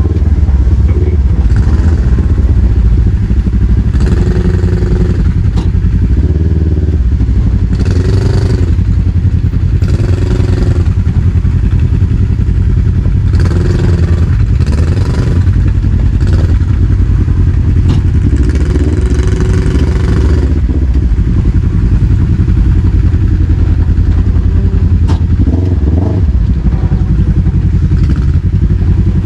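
Kawasaki KRX side-by-side's parallel-twin engine running steadily at low trail speed, rising in brief bursts of throttle several times in the first twenty seconds.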